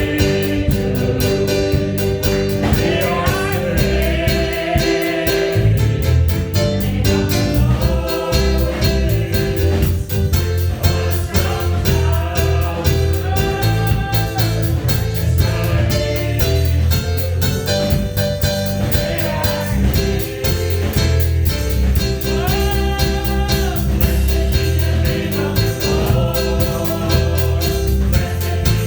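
Congregation singing a gospel worship song together, with instrumental accompaniment and a strong bass line.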